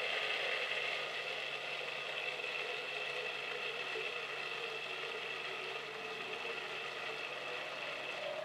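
A PC's newly filled water-cooling loop running: the pump whirs steadily while the coolant churns through the loop with air bubbles still trapped in it, which are being cycled out.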